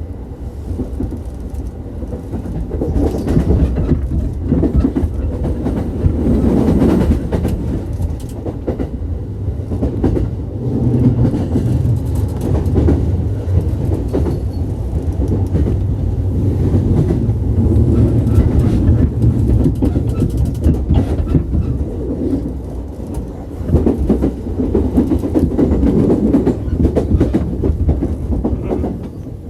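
Sobu Line local electric train running between stations, heard from inside the passenger car: a steady low rumble with the wheels clicking over rail joints. It quietens just before the end.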